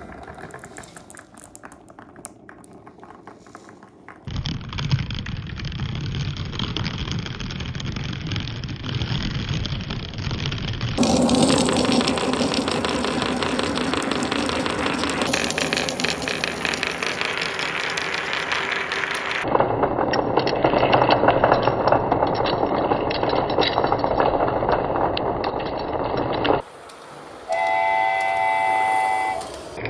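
Many marbles rolling and clattering through marble run tracks and tubes: a steady rumble dense with little clicks, changing abruptly several times. A short horn-like toot sounds near the end.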